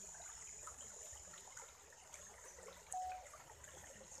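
Quiet background: a faint steady hiss, with one short steady tone about three seconds in.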